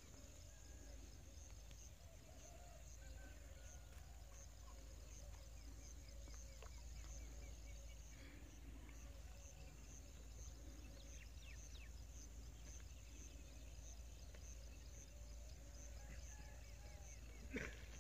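Faint outdoor marsh ambience: a steady high insect chirring with scattered faint bird calls over a low steady rumble. One sharp knock near the end.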